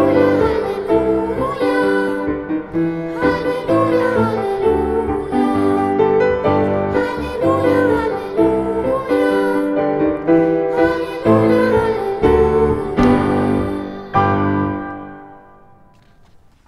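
Christian song with piano, fading out near the end.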